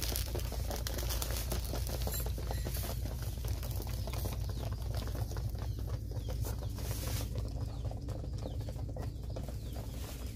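Domestic pigeons pecking grain from a tray: a dense, continuous patter of quick taps over a low steady rumble.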